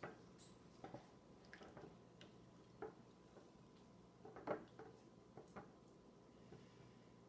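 Hands squeezing and kneading a wet cornstarch-and-water slime: faint, scattered squelches and small clicks, the loudest about four and a half seconds in.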